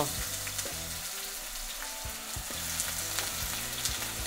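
Raw potato sticks sizzling as they go into smoking-hot vegetable oil in a cast-iron frying pan: a steady frying hiss with scattered soft clicks as pieces drop in.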